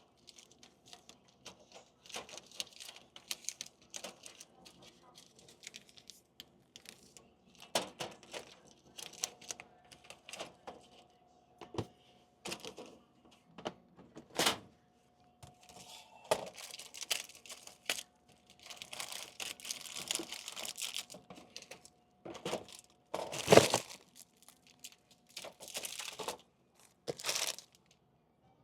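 Plastic snack wrappers crinkling and rustling as packets are handled and loaded into a vending machine, with irregular clicks and knocks, the loudest a sharp knock about two-thirds of the way through. A faint steady hum runs underneath from about a third of the way in.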